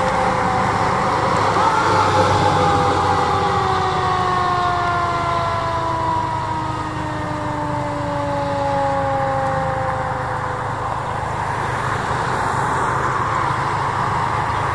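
A fire engine's siren winds slowly down in pitch over about ten seconds, over the low rumble of the fire engine and ambulance engines as they drive away.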